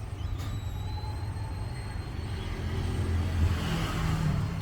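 Low steady background rumble, swelling a little in the second half.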